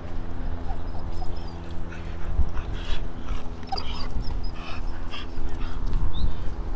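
A dog whining and yipping, several short high whines around the middle, over a constant low rumble of wind on the microphone.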